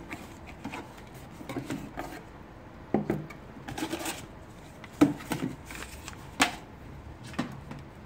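Cardboard shipping box rustling and scraping as a shrink-wrapped cylindrical watch box is pulled out of it and handled on a hard tabletop, with four sharp knocks, the loudest about five seconds in.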